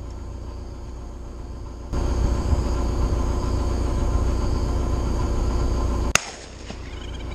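An engine running with a steady low rumble, which steps louder about two seconds in, and a single sharp click about six seconds in.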